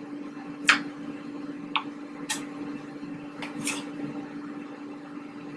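Kitchen knife knocking on a wooden cutting board while roasted chiles are cut and seeded, about five sharp taps spread over a few seconds, the first the loudest. A steady low hum runs underneath.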